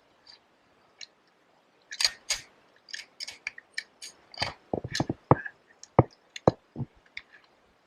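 An irregular series of sharp clicks and knocks, starting about two seconds in and coming several to the second before thinning out near the end.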